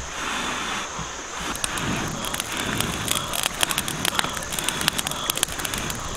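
Small stick campfire catching and crackling, the sharp snaps growing more frequent from about a second and a half in, while she blows on the kindling to fan the young flames.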